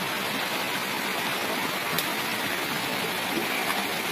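Steady rushing of running water, an even hiss that does not change, with a faint tick about two seconds in.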